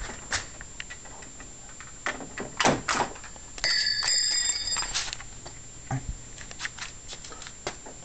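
Handling noise: a scatter of clicks and knocks as things are picked up and moved about, with a high squeak lasting just over a second about four seconds in.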